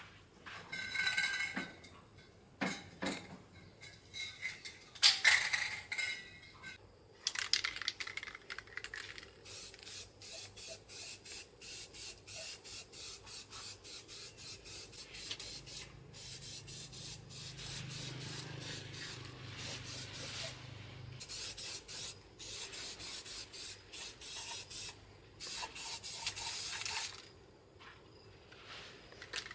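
Hand scraping and rubbing strokes on a hard surface: a few loud, irregular scrapes at first, then a long, even run of back-and-forth strokes at two or three a second that stops near the end.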